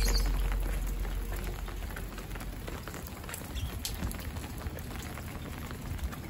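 Steady rain falling on wet pavement, an even hiss with a patter of individual drops. Music fades out over the first couple of seconds.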